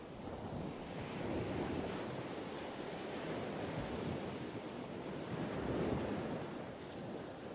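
Sea waves washing, rising and falling in slow swells of noise.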